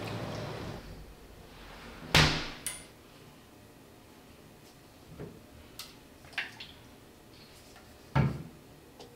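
Toiletry bottles and a cotton-pad holder being handled on a stone vanity tray: two sharp knocks, about two seconds in and near the end as a bottle is set down, with lighter clicks and taps between them.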